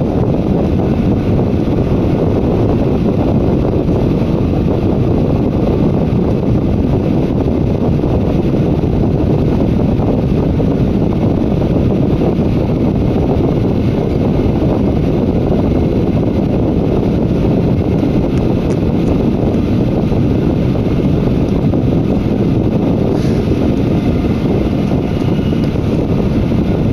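Inside a Z20900 double-deck RER C electric train on the move: a steady low rumble of wheels and running gear on the track that holds an even level throughout.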